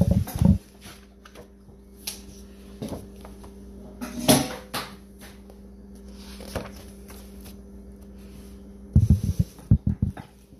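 A picture book being handled and its pages turned. Low thumps and knocks come at the start and again in a cluster near the end as the book is shifted and opened. A sharper paper rustle comes about four seconds in, and a steady faint hum runs underneath.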